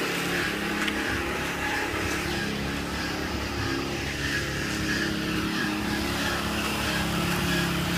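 A motor running steadily at an even pitch.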